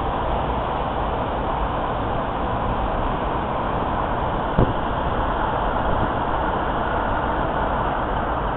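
Steady rush of road and wind noise from a car driving through city traffic, with one short knock about halfway through.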